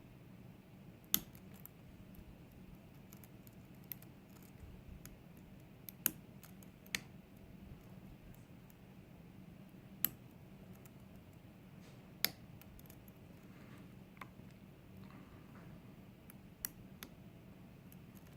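Lock pick and tension wrench working the pin stack of a GEGE euro cylinder with spool drivers, held in a false set: small sharp metallic clicks at irregular gaps of one to three seconds, over a faint steady hum.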